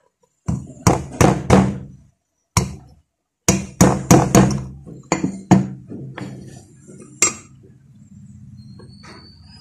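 Light hammer taps, about fifteen in uneven runs with short pauses, driving the metal bushing retainer into the bushing seat of an electric fan's motor housing a little at a time around its edge. Each tap is a sharp metallic knock with a brief ring.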